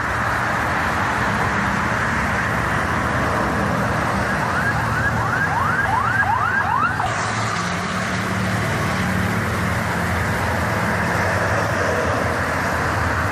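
Toll-road traffic rushing past, with a quick run of about eight rising siren-like whoops lasting some three seconds a third of the way in. A heavy engine drone builds in the second half as a bus passes.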